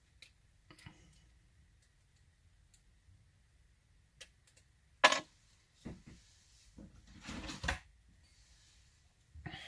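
Handling of a metal euro cylinder lock and lock-picking tools: a few faint clicks, a sharp knock about five seconds in, then a second or so of clattering and scraping.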